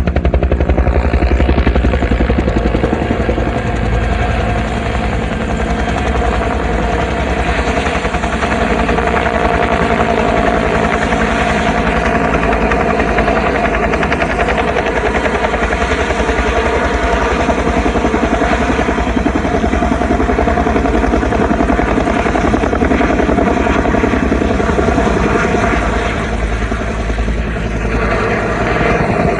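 Military helicopter running steadily, its rotor making a fast, even chop over the steady drone of the engine.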